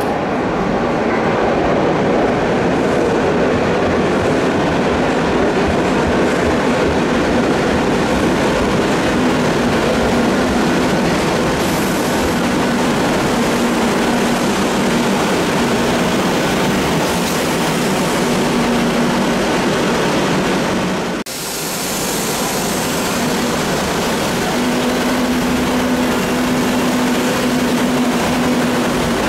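Madrid Metro train pulling into an underground station: steady running noise of wheels on rail with a steady low hum. About two-thirds through, the sound breaks off abruptly and picks up again with a train moving along the platform.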